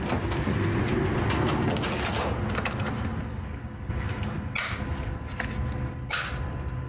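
Red plastic terminal cover on a car's 12-volt battery being handled, giving two short plastic clicks about four and a half and six seconds in, over a low steady hum.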